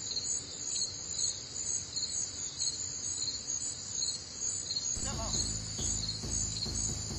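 A steady insect chorus, a pulsing high-pitched trill of crickets or katydids from the marsh. About five seconds in, a lower rhythmic rumble joins it.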